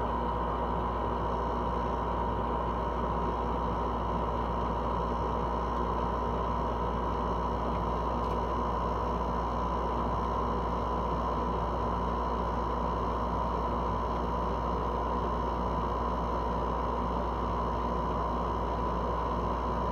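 LG window air conditioner running steadily: a constant hum with a steady high whine over a low rumble, unchanging throughout.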